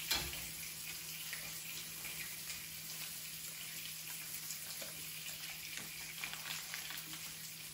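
Thick-cut bacon frying in a pan: a steady sizzle with faint scattered crackles of spitting grease.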